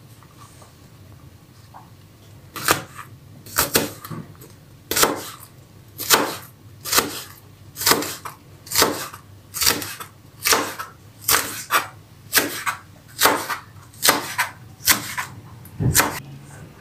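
Chef's knife chopping hot green peppers on a plastic cutting board. The blade strikes the board in an even rhythm of sharp knocks, about one a second, starting a few seconds in.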